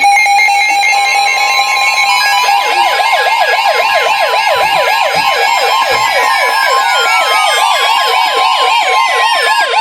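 Weather radio alert alarms sounding together and loud: a rapid yelping siren-like sweep about four times a second over steady alert tones, with a higher steady tone joining about a second in. It is the alert that goes ahead of a flash flood warning being broadcast.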